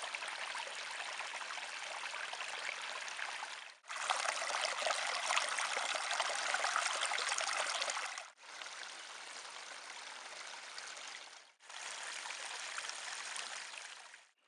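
Running water of small spring brooks and trickles, in four short shots cut together; the second shot, from about four to eight seconds in, is the loudest.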